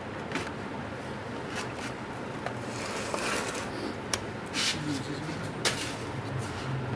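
Products and their packaging being handled: scattered light clicks and taps over a steady background hiss.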